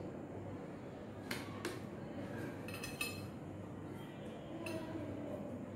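A metal serving spoon clinking against ceramic plates and bowls as food is served: a few sharp clinks, about a second in, a pair around three seconds, and one near the end.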